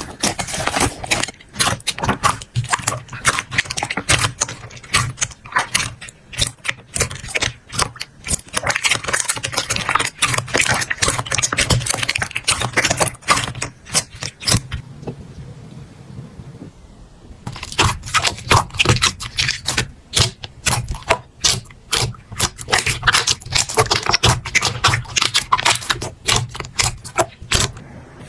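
Slime being squeezed and pressed by hand, giving a dense run of sticky clicks, crackles and pops, which drops away for a few seconds a little after halfway before starting up again.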